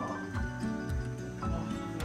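Instrumental background music, with held notes over a moving bass line.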